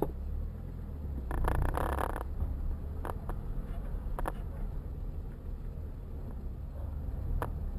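Low, steady engine and road rumble inside a moving car, with a short rush of louder noise about a second and a half in and a few sharp clicks later on.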